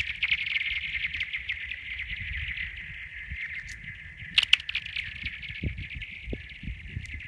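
Pebbles sliding over thin lake ice, making the ice sing: a high, chirping, whistling ring made of rapid ticks that slowly fades as the stone skids away. About four and a half seconds in, a second stone strikes with sharp clicks and sets the ringing going again.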